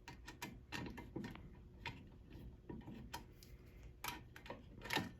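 Quiet, irregular metallic clicks and scrapes of a screwdriver turning the top screw of a Federal Signal 4050 fire alarm pull station to reset it. The loudest click comes shortly before the end.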